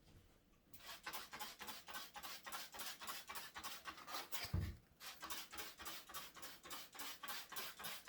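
Fast rhythmic scrubbing strokes, about five a second, as a dirty surface is scrubbed clean. There is a low thump and a brief break about two thirds of the way through.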